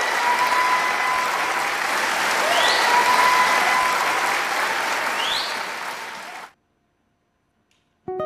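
Audience applauding, with a held whistle and a couple of short rising whistles over the clapping; it cuts off suddenly after about six and a half seconds. Just before the end a nylon-string acoustic guitar begins plucking notes.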